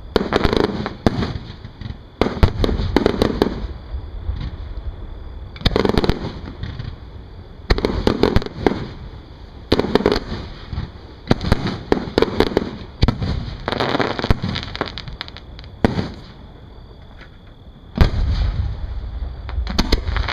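Aerial firework shells bursting one after another: a sharp bang every second or two, each trailed by about a second of echoing noise. A short lull comes near the end, followed by another loud bang.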